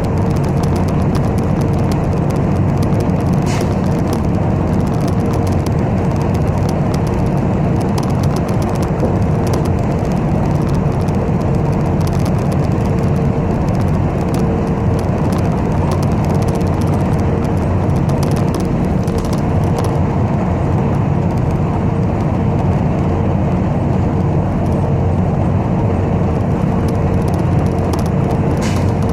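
City bus in motion, heard from inside the cabin: a steady rumble of engine and road noise with a faint constant hum. A couple of brief clicks come through, one early and one near the end.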